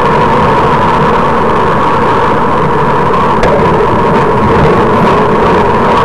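Steady rushing wind and road noise of travelling along a road at speed, with a constant hum in it.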